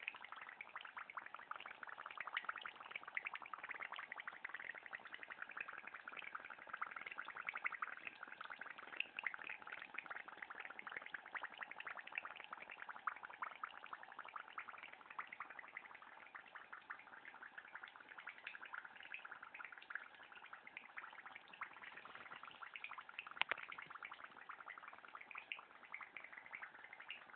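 Hot oil sizzling and crackling around a single French fry in a pan, a steady run of tiny rapid pops, with one sharper pop near the end.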